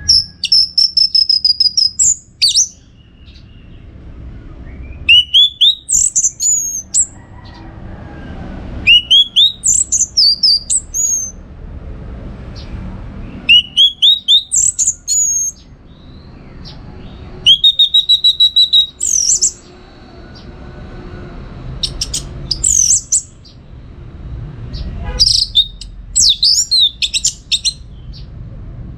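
Orange-headed thrush singing loud, varied phrases about every four seconds, seven in all. Each phrase opens with a rising or held whistle and runs on into a quick string of ticks and high, sweeping notes.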